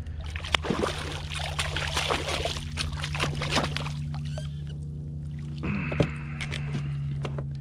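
A hooked redfish thrashing and splashing at the water's surface beside a kayak as it is grabbed by hand and hauled aboard, with a sharp knock about six seconds in as it lands on the kayak. A steady low hum runs underneath.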